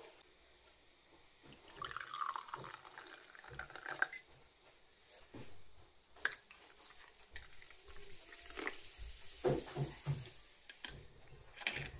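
Homemade stinging nettle cordial and soda water poured into a glass: a trickling pour with a few light clicks of glass, then a fine fizzing hiss as the soda bubbles.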